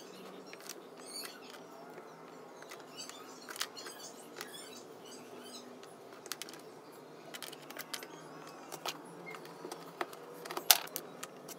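Small dry twigs clicking and tapping against each other and on a wooden tabletop as they are handled and laid into a frame, with irregular light ticks and one sharper click near the end.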